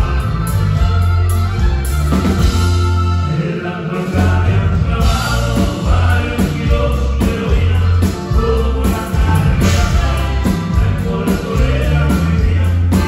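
A norteño band playing live with singing, the bass walking through long low notes under drums and guitars.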